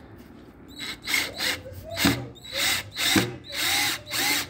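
Worx 12-volt cordless drill-driver driving a screw into MDF board, run in a series of short trigger bursts, the motor's whine rising and falling with each pull, the bursts getting longer toward the end.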